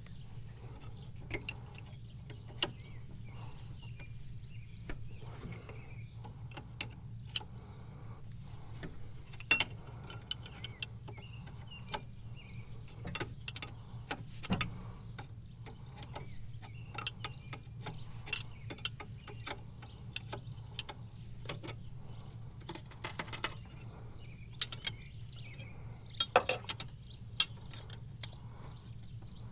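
Irregular metallic clicks and ticks of hand tools working a loosened hydraulic line fitting, over a steady low hum.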